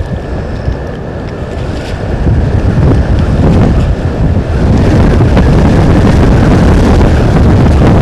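Strong wind buffeting the microphone: a heavy low rumble that grows louder about two seconds in and stays loud.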